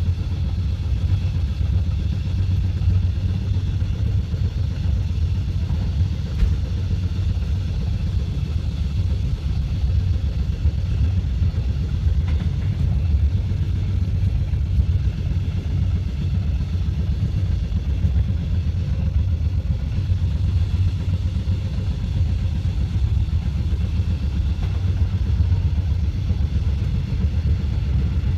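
Steady low rumble of a moving passenger train, even and unbroken throughout.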